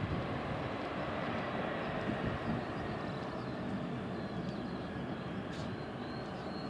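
Distant jet airliner engines running, with a thin whine that sinks slightly in pitch, under wind rumbling on the microphone. A few faint bird chirps come in the second half.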